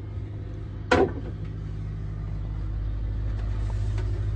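Vetus 14 kVA diesel generator running with a steady low hum that slowly grows louder, with a single sharp knock about a second in.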